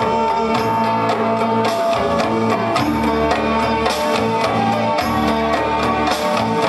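Karaoke backing music with a steady drum and percussion beat and sustained instrument lines, played loud over a stage PA.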